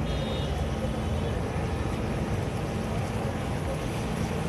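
Fish deep-frying in large woks of oil, a steady sizzle and bubbling, with a low rumble underneath.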